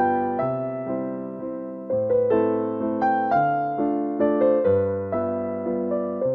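Background piano music: a gentle melody of single notes and chords struck about twice a second, each left to ring and fade.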